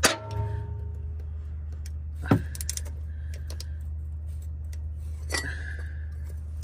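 Metal clinks of a socket wrench extension against the oil filter housing: a loud ringing clink at the start, then sharper clinks about two and five seconds in. A steady low hum runs underneath.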